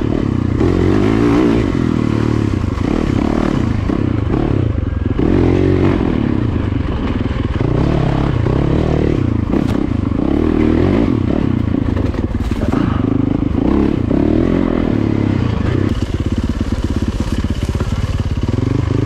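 Yamaha off-road dirt bike's engine under way, revving up and down again and again as the throttle is worked along a tight trail.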